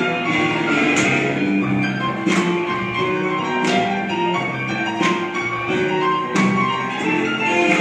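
Slow blues music with a steady beat, strongly accented about every 1.3 seconds, under held instrumental notes.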